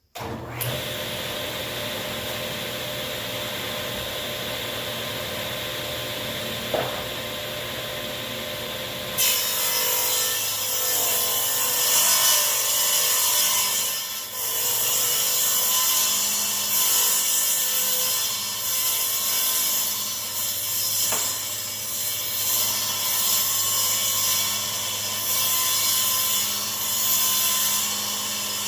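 Delta table saw running freely with a steady hum, then about nine seconds in the blade starts ripping a maple board along its edge, a louder rough cutting noise that wavers as the board is fed through.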